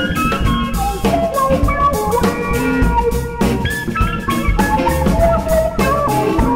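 Jazz septet playing: drum kit keeping time under bass and a quickly moving melody line.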